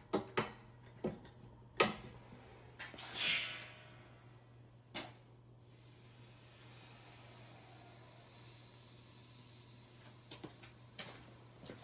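Clicks of an air line being coupled to an air hose reel, a short puff of compressed air, then a long steady hiss of compressed air escaping from the hose, which has a tear in it; the hiss swells and then fades away.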